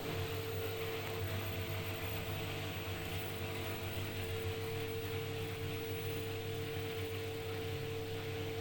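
Front-load washing machine on a spin-only cycle, its drum spinning at a steady speed with a constant motor whine over a low hum. It runs smoothly without knocking or banging, the sign of a machine that is well balanced.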